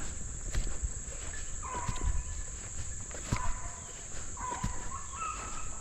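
Hounds baying in the distance as they run a rabbit: a few short, spaced bays over a steady high drone of insects.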